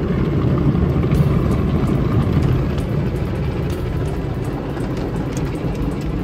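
Automatic drive-through car wash running over a car, heard from inside the cabin: a loud, steady noise of water spray and wash equipment working on the body and glass, with scattered small spatters.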